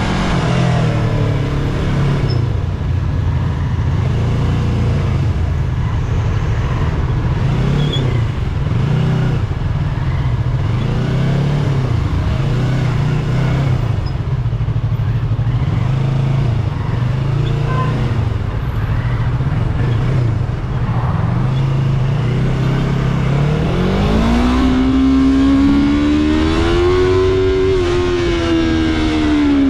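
Yamaha YZF-R3's 321 cc parallel-twin engine, on its stock exhaust, running steadily at low revs, then revving up about three-quarters of the way through as the bike accelerates, its pitch climbing, wavering and dropping back near the end.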